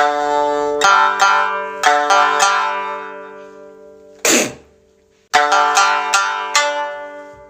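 Music on a plucked string instrument: short phrases of picked notes that ring out and fade, a second phrase starting about five seconds in. About four seconds in there is one short, breathy rush of noise.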